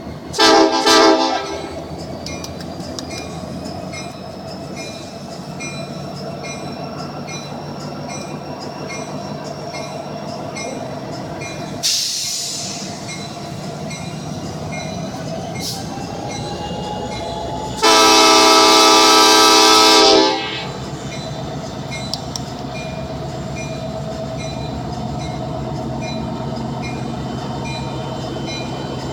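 Train horn sounding a multi-tone chord: a short blast just after the start and a longer blast of about two and a half seconds later on, over the steady rumble of a passing train with faint regular ticking. A brief loud rush comes about twelve seconds in.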